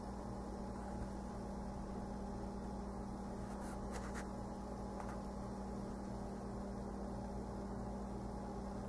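Steady background hum with a constant hiss, like room tone with an appliance or fan running, and a couple of faint clicks about four seconds in.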